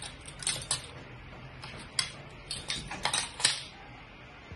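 Light, irregular clicking and tapping, about eight sharp clicks, of metal spoons knocking against a plate while cookie dough is portioned and rolled by hand.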